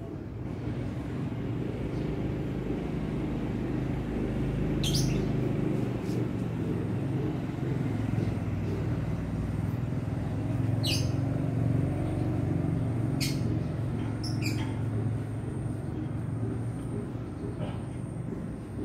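Steady low engine-like rumble that swells a few seconds in and eases near the end, with about five short, high bird chirps over it.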